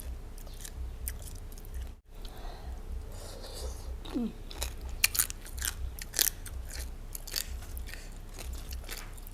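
Close-up sound of a person biting and chewing crunchy food: a run of sharp crunches, densest in the second half. The sound drops out for an instant about two seconds in.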